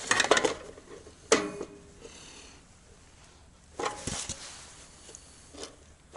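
Handling noise of a solar combiner box's cover plate being fitted against the enclosure and taken off again: a quick run of light clicks and rattles at the start, one sharp click about a second later, and another rattling cluster about four seconds in.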